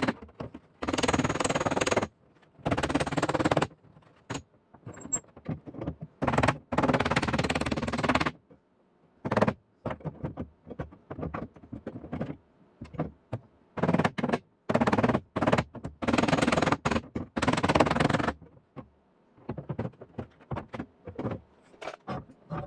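Welding arc on sheet-metal auto body panel, laid down in repeated bursts of about one to two seconds with short pauses and a few brief tacks between them, as a pinhole and the weld seam are filled.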